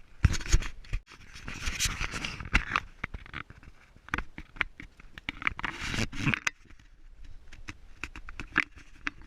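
Irregular scraping and scuffing with scattered sharp knocks, loudest about the first second and again about two and six seconds in: shoes and hands scrambling down rock.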